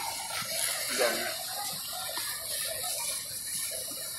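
Fire hose spraying water on a burning car: a steady, even hiss of water.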